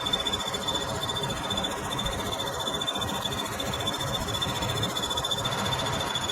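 Metal-turning lathe running through a cut on a piston, with a steady, high, finely pulsing whine over the general machine noise.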